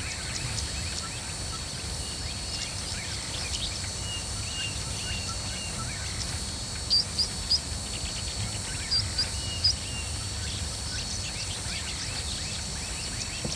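Small birds chirping over a steady low outdoor background hum, with brighter short chirps in two brief clusters, about seven seconds in and again around nine seconds.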